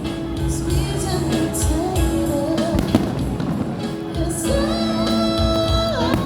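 Loud music with a singing voice, with a few sharp bangs of fireworks going off over it, the sharpest about three seconds in.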